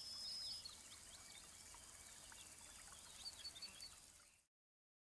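Birds chirping over a steady outdoor hiss of countryside ambience, with a quick run of high chirps a little past three seconds in. It all fades out about four seconds in.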